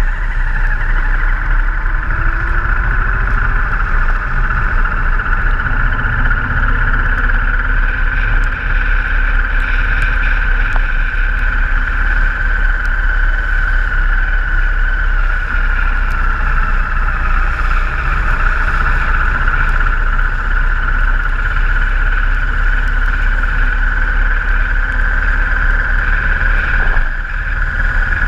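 Steady rush of wind and engine drone from a motorcycle riding at road speed, heard from a camera mounted on the bike, with a brief dip in level near the end.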